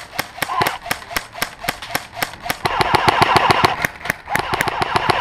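Airsoft guns firing in rapid full-auto bursts: a fast, even run of sharp clicks that gets denser and louder about two and a half seconds in.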